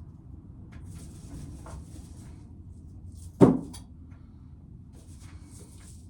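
A single loud thump about three and a half seconds in, amid light rustling and scraping, as shelled corn cobs are handled and emptied out.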